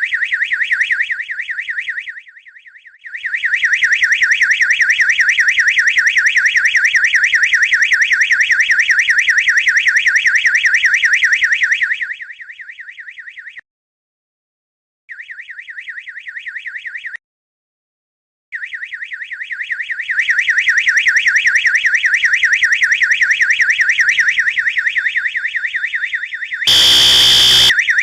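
Fire alarm under test, sounding a loud, high, rapidly warbling tone that cuts out and restarts a couple of times. Near the end a louder, harsher alarm tone comes in for about two seconds.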